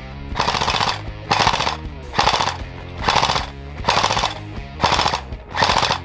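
Seven short bursts of rapid automatic fire from an airsoft gun, evenly spaced about once a second, over background music.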